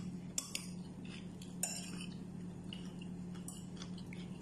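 A spoon clicking and scraping against a plate a few times while eating, with a steady low hum behind it.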